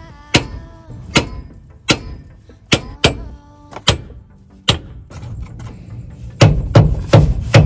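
Hammer blows on steel at the rear axle of a Toyota AE86, each strike with a short metallic ring. There are about seven strikes spaced under a second apart, then, about six seconds in, a quicker run of heavier blows.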